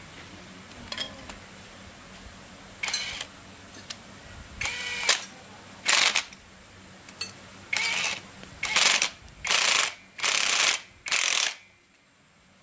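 Cordless drill-driver with a socket, run in about eight short bursts against a nut on a Ryobi grass trimmer's small engine.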